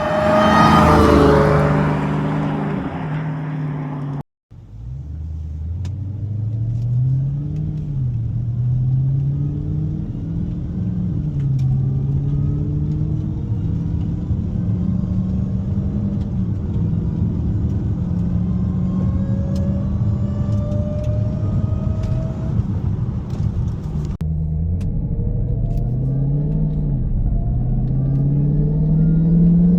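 Stock-exhaust Hellcat's supercharged 6.2-litre HEMI V8, breathing through a Corsa cold air intake, pulling hard. The engine note climbs and drops back at each gear change, over and over, with a fainter rising whine above it. It opens with a loud burst of throttle, and there is a short cut to silence about four seconds in.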